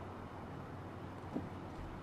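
Quiet night background ambience: a steady low hum under a soft hiss, with a single faint tap about a second and a half in.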